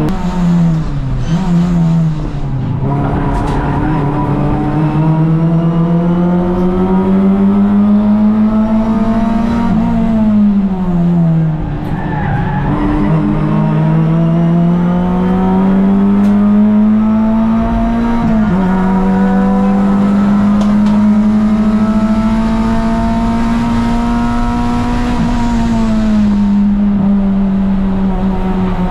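Toyota Vios race car's 1NZ four-cylinder engine at racing speed. Its pitch climbs steadily for several seconds at a time, with sudden drops at gear changes and under braking, about four times in all.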